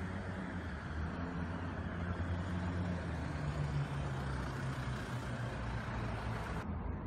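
Steady low rumble of a motor vehicle engine running nearby, over a hiss of outdoor traffic noise. The higher hiss drops off abruptly near the end.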